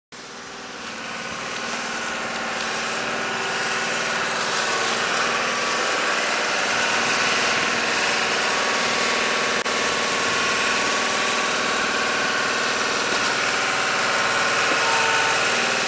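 Engine running steadily, fading in over the first couple of seconds, with a brief dropout near the middle.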